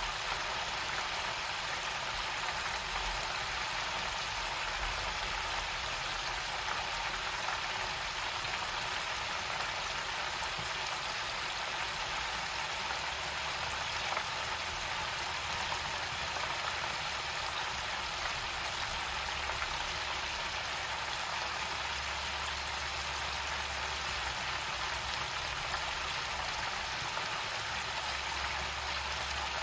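Chicken pieces deep-frying in hot oil in an electric countertop deep fryer, a steady, even sizzle.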